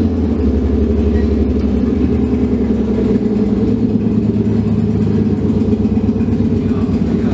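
Car engine and exhaust running steadily at fairly constant revs, a loud low drone with a slight change in pitch about two to three seconds in.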